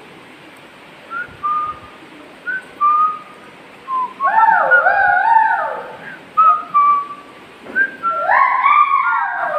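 Whistling: short, level whistled notes, with longer swooping whistles that rise and then fall, about four seconds in and again near the end.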